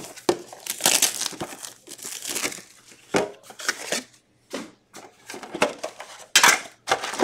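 Foil wrappers of hockey card packs crinkling in irregular rustles as the packs are handled, the loudest rustle near the end.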